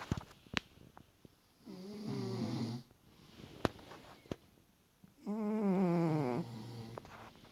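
Snoring while asleep: two long, fluttering snores about three and a half seconds apart, with a few faint clicks between them.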